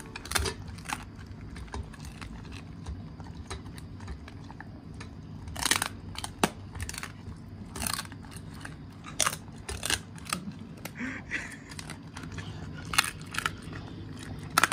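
Golden retriever chewing deer rib bones, with irregular sharp crunches and cracks as its teeth break the bone.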